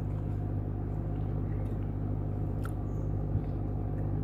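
Steady low mechanical hum, even in level throughout, with a faint click a little past the middle.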